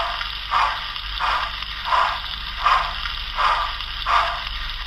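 Hornby TTS sound decoder in an OO gauge Merchant Navy model steam locomotive playing steam exhaust chuffs through its speaker, about three chuffs every two seconds over a steady hiss. The chuffs stop near the end, leaving the hiss.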